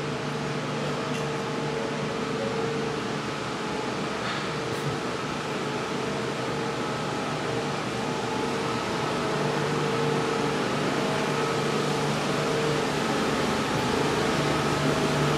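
Steady hum and hiss of a standing ER2 electric train, with a constant low drone and a higher tone over it, growing slightly louder in the second half.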